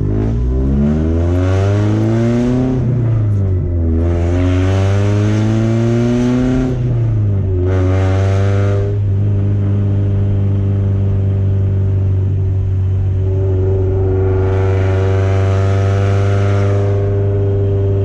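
Porsche 944 four-cylinder engine, loud through a de-restricted 2.5-inch exhaust with headers and no catalytic converter or muffler, pulling away under throttle. Its pitch climbs, drops at gear changes about three and seven seconds in, then holds steady from about nine seconds in as the car cruises.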